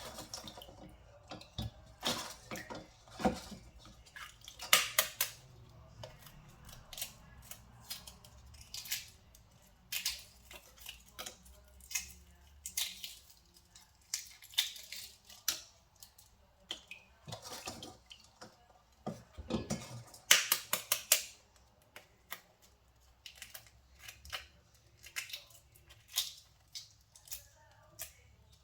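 Kitchen food-preparation sounds: irregular sharp taps, clicks and scrapes of utensils on a board and dishes, with a few denser clusters of strokes.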